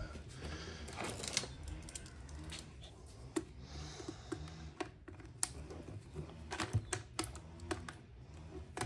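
Irregular small clicks and taps of hand tools, such as pliers, against the small plastic and metal parts of an RC car's CVD axle as it is worked apart, over a faint low hum.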